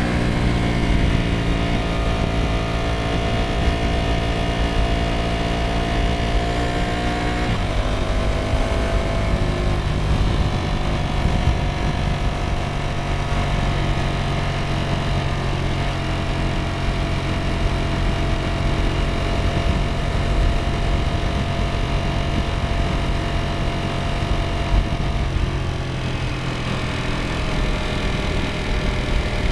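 Ducati Streetfighter V4S's 1103 cc V4 engine pulling under gentle acceleration with slowly rising revs; about seven seconds in the revs drop sharply, then it runs at a steady pace.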